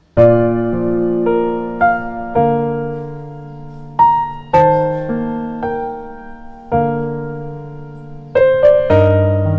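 Background piano music: slow, gentle notes and chords that ring and fade, with a short break in the sound right at the start.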